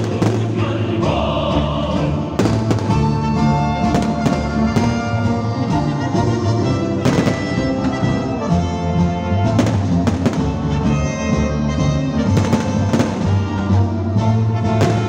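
Orchestral music with singing, loud and steady, with the sharp bangs of fireworks shells bursting several times over it.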